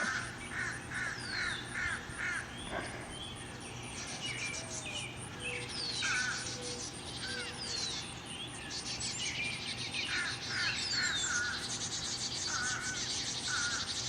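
Birds calling: a repeated call given in short series of several notes, with higher falling chirps scattered between. A fast, high buzzing trill joins in during the second half.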